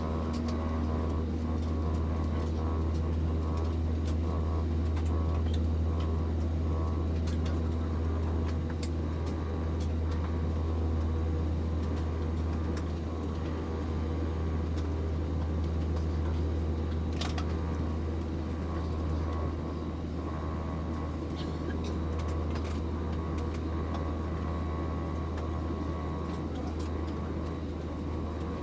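Airbus A321-200 cabin noise: a steady low drone of the engines heard inside the cabin, with a few faint clicks.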